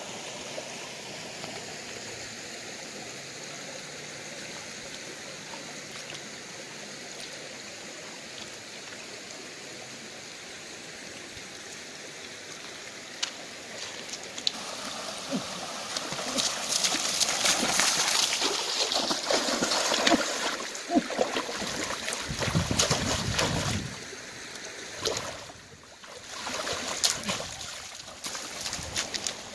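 Shallow rocky stream running with a steady trickle. About halfway through, loud irregular splashing starts as hands and feet churn the shallow water. It comes back in shorter spurts near the end.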